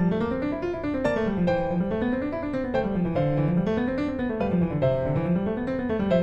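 Background piano music: a running line of notes over a bass that climbs and falls in repeated waves.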